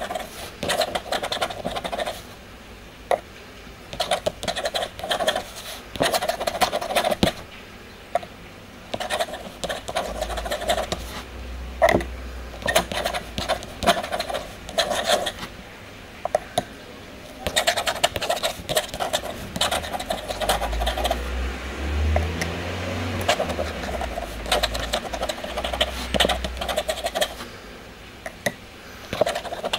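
Steel dip-pen nib scratching across paper in bursts of strokes about a second long with short pauses between them, and a low rumble at times in the middle.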